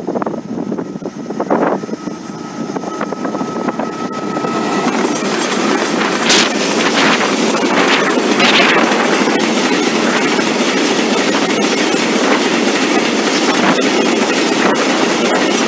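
A freight train approaching and then passing close by, its wagons rolling past in a loud, steady rumble with wheel clatter. Wind buffets the microphone in the first couple of seconds, with a thin steady whine as the train nears. Brief high-pitched wheel screeches come about six and eight seconds in.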